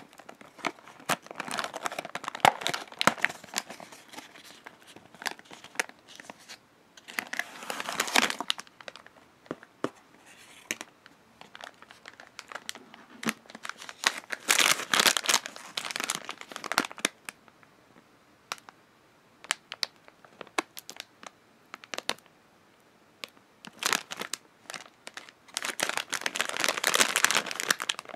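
Cardboard snack box being torn open by hand, then a crinkly plastic snack bag handled and crumpled. The crinkling comes in several bursts with short pauses between them, the longest near the end.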